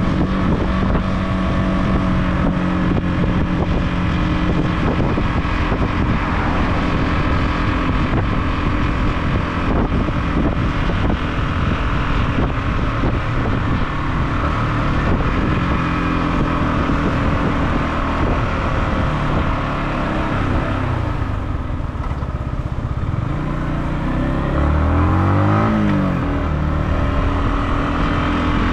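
Yamaha motorcycle engine running while riding, with wind noise over the microphone. About 25 seconds in, the engine pitch briefly rises and falls.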